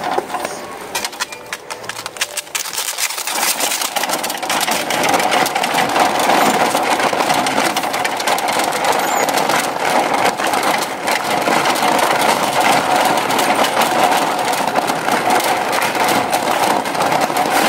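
Wire shopping cart rolling over asphalt, its wheels and basket rattling steadily with many small clicks. The rattle grows louder over the first few seconds, then holds.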